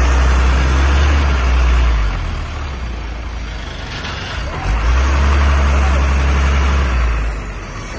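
Diesel engine of a heavily loaded truck labouring up a steep hairpin under full load, its deep exhaust drone swelling twice, each time for about two and a half seconds.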